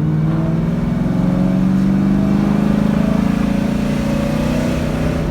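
A Lincoln Town Car's V8 runs as the car drives along. Its pitch rises as it accelerates over the first few seconds, then eases back. No axle whine or clunk stands out from the newly replaced rear axles, which feel smooth to the driver.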